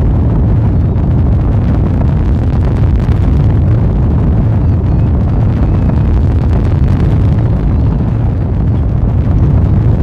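Long March 12 rocket's first-stage engines (four kerosene-oxygen YF-100K) during launch: a loud, steady, deep rumble with a fine crackle running through it.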